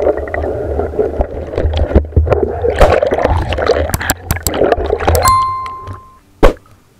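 Muffled underwater gurgling and water rush from a camera in a river, full of small clicks and knocks. About five seconds in it fades out and a short electronic chime from a subscribe-button animation rings, followed by one loud click near the end.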